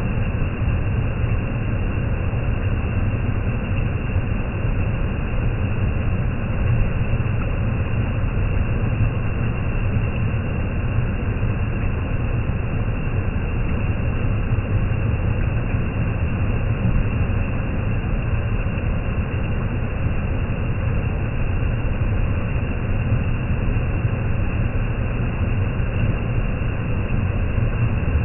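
Waterfall in heavy rainy-season flow: a loud, steady rush of falling water, deepest in the low range, with no change throughout.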